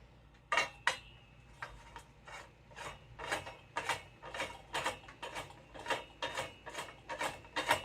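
Metal dance-pole sections being twisted together: a couple of clicks, then a steady ratchet-like run of short metallic rubs and clicks, about three a second.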